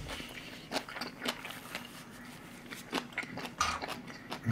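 Close-miked mouth chewing food, a series of irregular short clicks and smacks.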